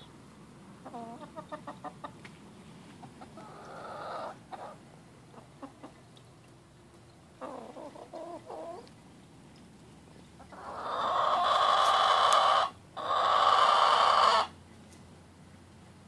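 Black Australorp hen vocalising: short runs of quick clucks, then two long, loud, harsh growling calls near the end, separated by a brief break. The owner likens this growl to a death-metal singer.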